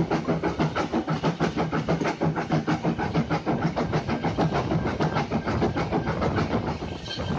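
0-4-0 saddle tank steam locomotive working under power up a gradient, its exhaust giving a quick, even chuff of about four beats a second.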